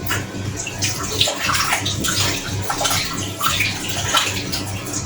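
Tap water running and splashing over cauliflower florets as they are washed.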